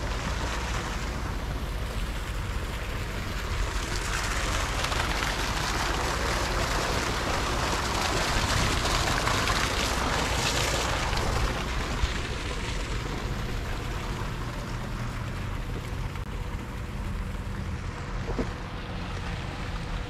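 Wind buffeting the microphone outdoors, with a rushing hiss that swells and fades over several seconds in the middle.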